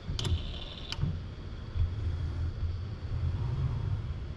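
Robot tool-change mechanism releasing the screwdriver in its rack: two sharp clicks about three-quarters of a second apart, with a steady high ringing tone between them. A low rumble follows as the UR10e arm lifts away.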